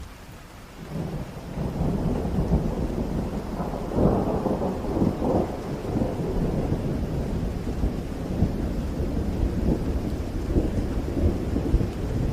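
Thunder rolling over steady rain, building about a second in into a long low rumble, with its loudest peals around four and five seconds in.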